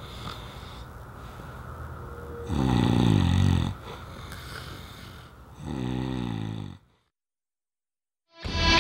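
Two loud snores from a sleeping man, each about a second long and about three seconds apart, over faint room tone.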